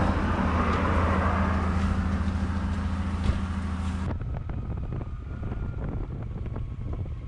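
Motorcycle engine running at a steady cruising speed, with wind rushing over the microphone on the moving bike. About four seconds in the sound cuts abruptly to a quieter, duller take of the same riding.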